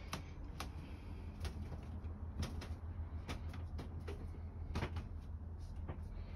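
Scattered light clicks and knocks, irregular and about a second or less apart, over a steady low rumble, inside a caravan.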